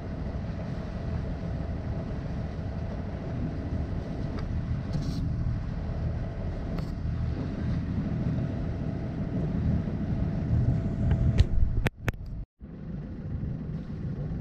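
Sailboat's inboard engine running steadily under way, a low rumble with a faint steady whine. Near the end a couple of sharp clicks, then the sound cuts out for a moment before the rumble comes back.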